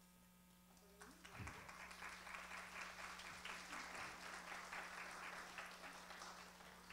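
Audience applauding: many hands clapping, starting about a second in and tapering off near the end, fairly faint.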